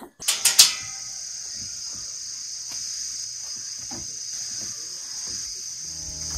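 Crickets chirring steadily in a high, even drone, with a quick run of sharp clicks and knocks about half a second in. Background music comes in near the end.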